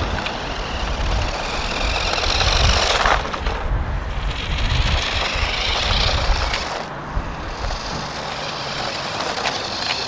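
Small 1:18-scale electric RC truck driving over brick paving: its motor whirring and its tyres rattling on the bricks, with a low rumble underneath. The sound shifts abruptly about three and seven seconds in.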